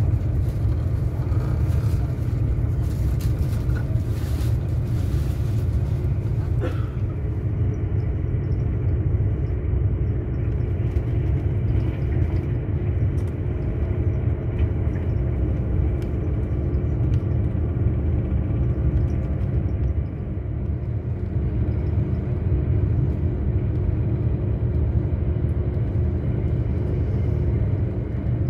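Steady low rumble of a moving passenger train heard from inside the carriage, with a faint steady hum over it and a single short click about seven seconds in.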